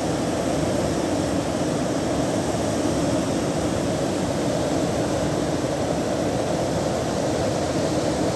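Storm-swollen stream in flood, muddy water rushing over and around a jam of logs and branches at a small bridge. It is a steady, unbroken rush of water, heavier in the low and middle pitches.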